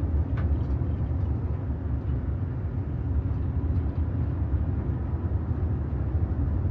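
Motor vehicle running, a steady low rumble of engine and road noise.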